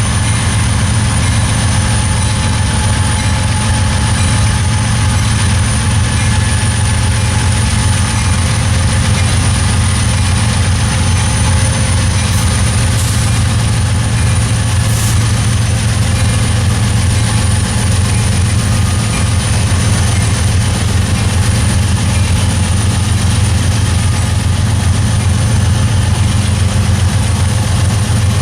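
A Norfolk Southern train rolling past at a steady, loud level, its cars moving continuously along the track.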